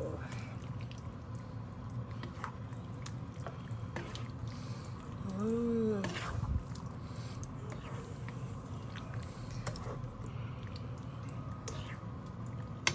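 Spatula stirring raw beef cubes through thick, wet spice paste in a non-stick pan: soft squelching and scraping with small clicks, over a steady low hum. About halfway through comes one short hummed vocal sound.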